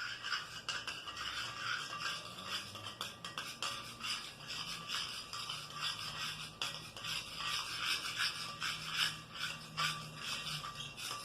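A spoon stirring and scraping against a plate with quick, continuous strokes, mixing white glue and green paint into slime.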